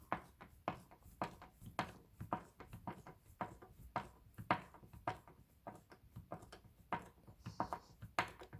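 A screw being tightened by hand into a desk frame: a steady run of sharp clicks, about two or three a second.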